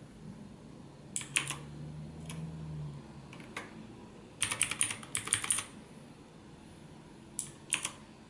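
Redragon Kumara K522 mechanical keyboard with blue switches clicking as keys are pressed in small scattered groups, with a quick run of about a dozen clicks in the middle.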